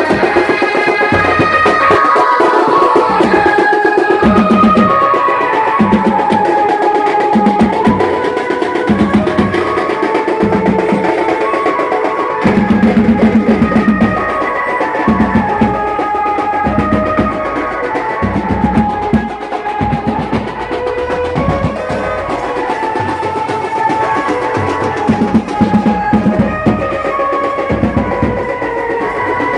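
Live wedding band music: an electronic keyboard plays a melody in quick stepped notes over steady drumming, loud and amplified through horn loudspeakers.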